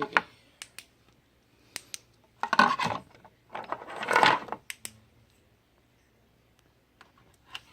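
Metal flashlights clinking and knocking together as they are rummaged through in a container: scattered sharp clicks and two short clattering spells, about two and a half and four seconds in.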